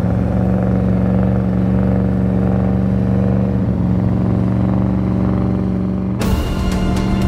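Porsche Cayenne's engine running steadily at constant revs while pulling a heavy load. About six seconds in it gives way suddenly to music with sharp ticking.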